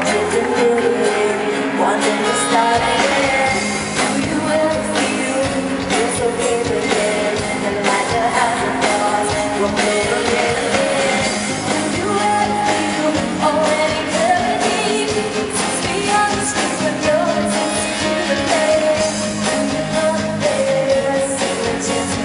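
Live pop-rock band with a female lead singer performing a song, drums hitting a steady beat under the vocal melody.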